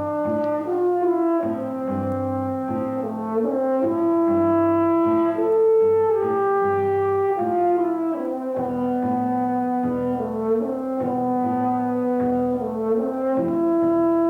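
Film-score music: horns play a slow melody in long held notes over a low accompaniment.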